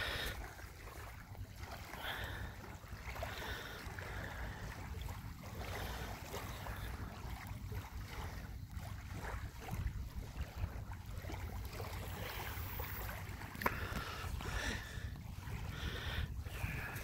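Wind rumbling on a phone microphone, with small waves lapping on a pebble shore, and a single brief click about three-quarters of the way through.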